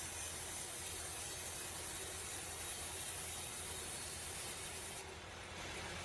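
Steady mechanical hum with a constant hiss; the hiss drops out for about a second near the end.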